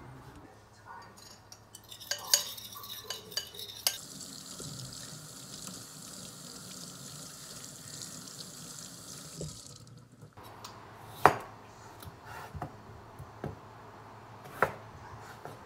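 Kitchen tap running into a stainless steel sink as something is rinsed by hand under it, as an even hiss for about six seconds, then shut off abruptly. Before it come rustles and clicks from a seasoning packet being handled. After it come a few chef's-knife strikes on a wooden cutting board, two of them sharp and loud.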